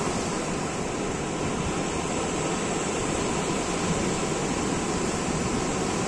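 Small sea waves breaking and washing onto the shore, a steady rush of surf.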